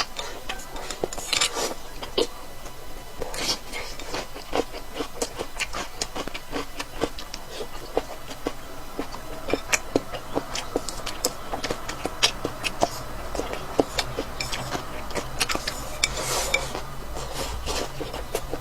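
Close-up eating sounds: many irregular sharp clicks and smacks of chewing and mouth noises, with the occasional clink of utensils against dishes.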